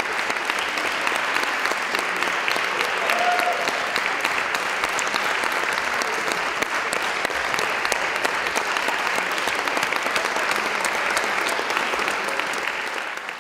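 Audience applauding: dense, steady clapping with a brief call from the crowd about three seconds in, fading out at the very end.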